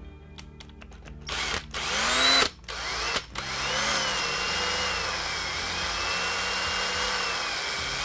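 AEG cordless drill drilling a hole through the plastic case of a label maker. After a few light clicks, the motor spins up in two or three short bursts, then runs steadily from about three and a half seconds in, its whine rising and falling in pitch as the bit cuts.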